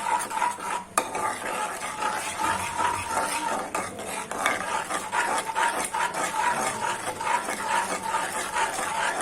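Spoon stirring and scraping in a bowl, mixing chicken into its spice-and-salt marinade, with many quick clinks and scrapes. A steady thin high tone sounds underneath.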